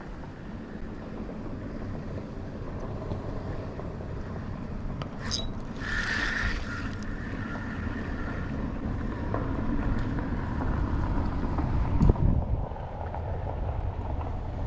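Steady rushing of a shallow mountain creek with wind buffeting the microphone. There is a short hiss about six seconds in and a loud thump about twelve seconds in.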